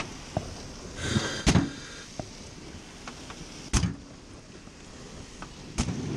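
Sharp knocks and clunks of metal in the basket of a fire service aerial platform, five in all with the loudest about a second and a half in and near four seconds, over a steady mechanical hum.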